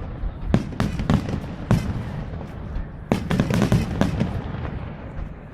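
Fireworks display: shells bursting in sharp bangs, several spread over the first couple of seconds and a dense volley a little past halfway, each trailed by a low rumble.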